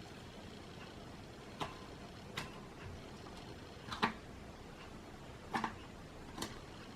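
Iceberg slime's hardened crust cracking as it is poked and torn: five or so sharp, crunchy cracks at irregular intervals over a faint steady hiss.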